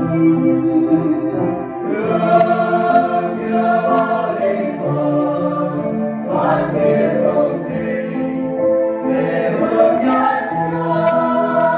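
Mixed choir of men and women singing a Vietnamese Catholic Communion hymn, holding sustained notes that move from chord to chord.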